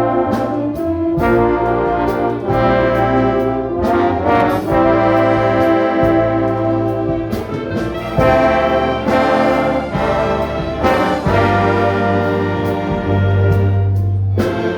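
Orchestra with prominent brass playing held chords that change every second or two over a low bass line, with light percussive ticks.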